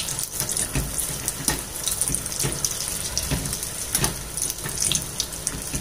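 Batter-coated potato bondas (batata vada) deep-frying in hot oil: a steady bubbling sizzle with frequent sharp crackles.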